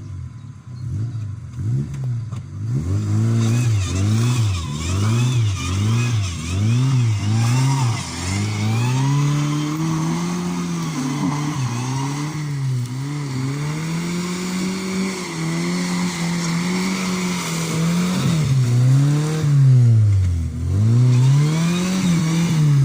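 Fiat Panda's engine revving up and down over and over as it drives through mud. The pitch swings quickly at first, then in slower, longer rises and falls.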